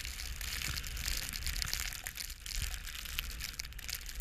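Blizzard wind buffeting the microphone with a low rumble, over a steady crackling hiss of snow.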